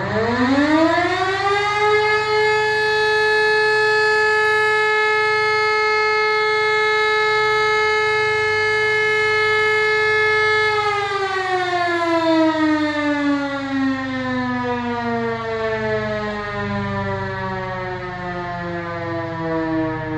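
E57 electromechanical fire-brigade siren sounding a test alarm. It spins up from a low pitch to a steady wail in about two seconds and holds it for roughly nine seconds. It then winds down slowly, its pitch falling.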